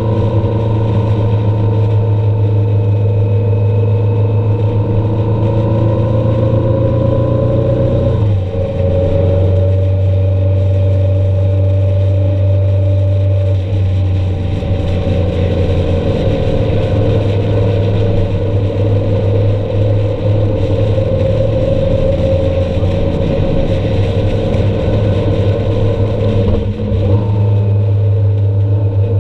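A vehicle's engine running steadily while driving on the highway, its note changing abruptly about eight seconds in and again near the end.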